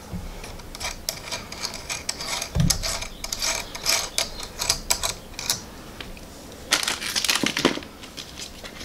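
Oscilloscope test leads and connectors being handled on a mat: plastic accessory bags crinkling and small metal plugs clicking and rattling, in two busy spells with a dull bump about two and a half seconds in.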